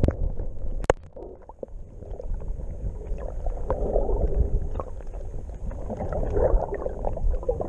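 Muffled underwater sound picked up by a camera held below the surface while snorkeling over a reef: a low rumbling wash of water that swells and fades as the swimmer moves, with scattered small clicks and one sharp click about a second in.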